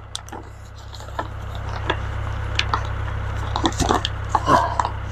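Mahindra 2638 tractor's diesel engine idling steadily, with scattered knocks, clicks and scrapes from a tie-down strap being worked around the wooden chicken coop.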